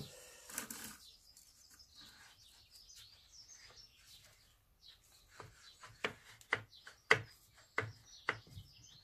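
Handling noise as the gear head of a Stihl HT 75 pole pruner is worked onto its shaft tube: a knock and a brief rustle at the start, then, in the second half, a run of sharp clicks and knocks, about two a second.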